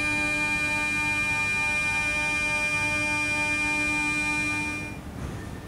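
Stationary 81-717 metro train at the platform giving a steady electrical whine made of several pitches at once, one of them pulsing a few times a second. It cuts off suddenly about five seconds in.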